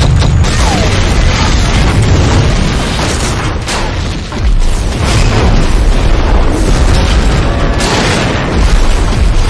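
Loud, continuous explosion-like rumbling and blasts with heavy low bass. The level dips briefly a little past the middle, then rises again.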